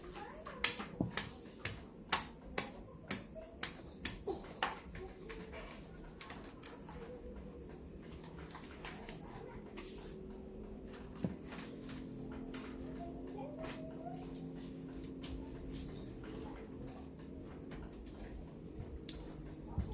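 Sharp cracks and snaps, about a dozen in the first five seconds, from the shell of a giant mud crab being broken apart for eating, over a continuous high, steady cricket trill.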